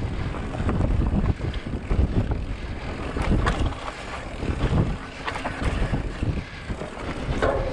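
Wind buffeting the microphone of a camera on a moving bicycle, gusting up and down unevenly, with scattered knocks and rattles from the bike running over rough ground.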